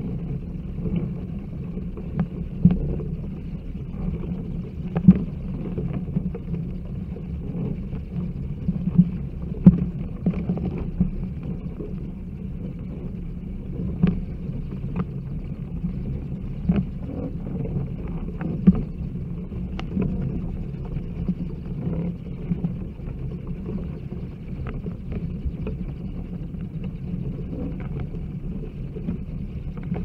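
Bat colony at its roost: a continuous low rumble with irregular sharp clicks scattered through it.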